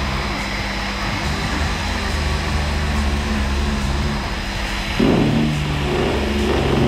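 Air-powered random-orbital sander with dust extraction running steadily against body filler on a bus's corner panel, sanding the filler down. About five seconds in the sander gets louder.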